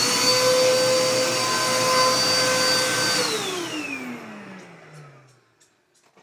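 Vacuum cleaner motor running at a steady high whine, then switched off about three seconds in, its pitch falling as the motor spins down to a stop.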